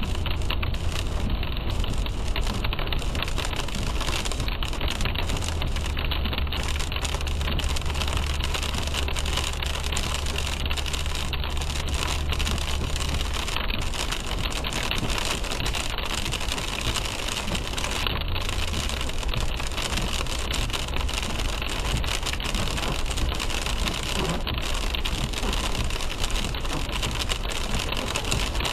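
Rain on a car and tyres hissing on a wet road, heard from inside the moving car, over a steady low engine and road hum. The hum swells about five seconds in and eases off about halfway through.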